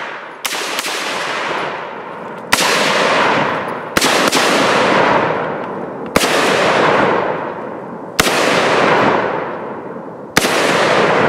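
An AR-style pistol firing six shots, spaced about two seconds apart, each sharp crack trailing off into a long echo.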